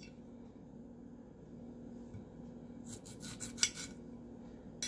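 Kitchen knife cutting limes in half on a ceramic plate, the blade clicking against the plate a few times about three seconds in and once more near the end. A faint steady hum sits underneath.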